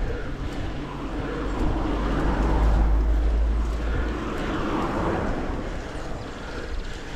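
A car passing by, its engine and tyre noise swelling to a peak about three seconds in and then fading away.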